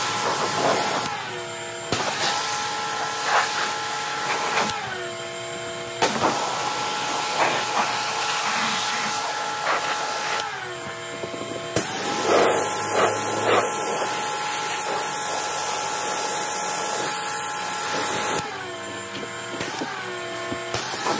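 Pressure washer spraying a plastic car fender liner: a steady motor whine under the hiss of the water jet. It cuts out with a falling pitch and starts again several times as the trigger is released and squeezed.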